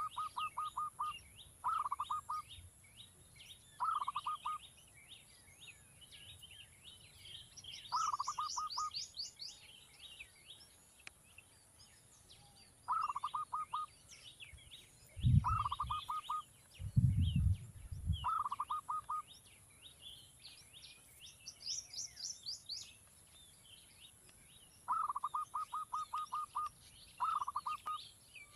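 Bird chicks calling in short, rapid chattering bursts that repeat every couple of seconds, over busy high-pitched chirping from other birds. Two dull low thumps come midway and are the loudest sounds.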